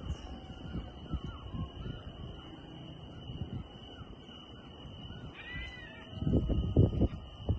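One short animal call, crow-like, about three quarters of the way in, over a low, uneven rumble of knocks and thuds that grows loud near the end.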